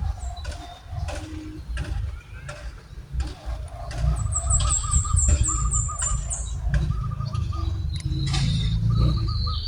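Birds calling outdoors: a fast run of about nine high chirps midway through, with repeated lower chirping notes around it, over a steady low rumble.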